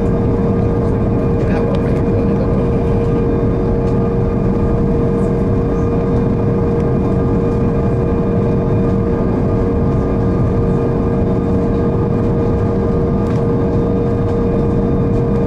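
Airbus A340-600 cabin noise shortly after takeoff: its four Rolls-Royce Trent 500 engines and the airflow making a steady, loud rush with one steady hum running through it.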